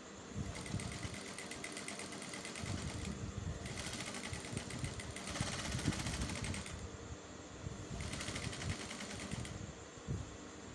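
Sewing machine stitching through layered fabric in three runs of fast, even stitching, stopping briefly between them as the cloth is turned around a curved seam.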